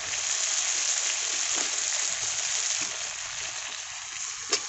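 Spiced masala paste sizzling in oil in a metal kadai, fried down until the oil has separated, with fried potato pieces just added. It is a steady hiss, and a single short tap sounds near the end.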